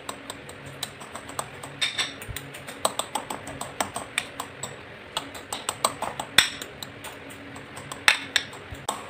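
Red dragon fruit being crushed by hand in a cut-glass bowl: a run of small, irregular clicks and taps, several a second, as the fingers squeeze the soft fruit and knock against the glass, with a few louder knocks.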